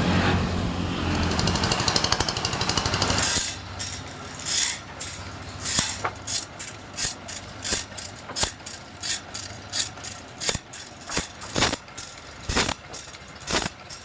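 Sawmill machinery running steadily, cutting off abruptly about three seconds in. After that come irregular sharp knocks and clatter, roughly two a second.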